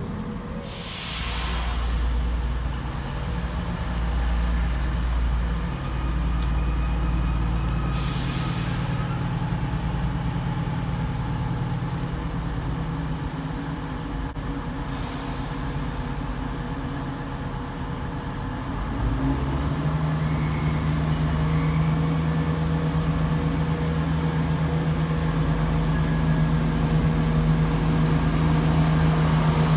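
Diesel locomotive engine ticking over with a deep, steady note, with three short hisses of air about a second, eight seconds and fifteen seconds in. About nineteen seconds in, the engine revs rise to a higher, steady note.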